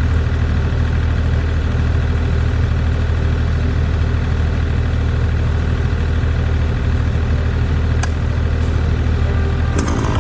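An engine idling steadily, with a low, even hum.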